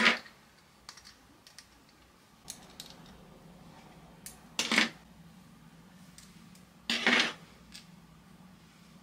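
Metal pin-curl clips being taken out of hair: a few light clicks, then two short, louder metallic clatters, about halfway through and about three quarters of the way through.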